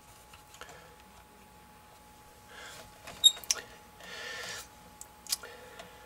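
Faint handling noise: wires rustling and a few sharp clicks as the wiring bundle in front of the furnace control board is moved by hand, the two sharpest clicks about three and five seconds in, over a faint steady tone.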